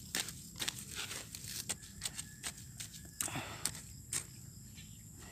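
Irregular crunching and crackling of dry grass stalks and dry soil, with a short scraping rustle about three seconds in.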